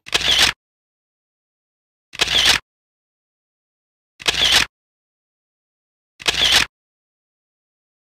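Camera shutter sound effect repeated four times, about every two seconds, each click about half a second long, with nothing in between.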